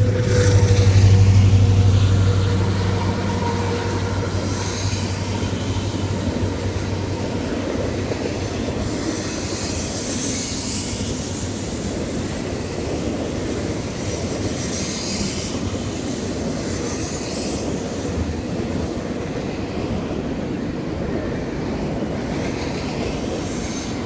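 Double-stack intermodal freight train rolling past, a steady rumble of wheels on rail with brief high wheel squeals now and then. A low diesel engine drone is strong in the first few seconds and fades.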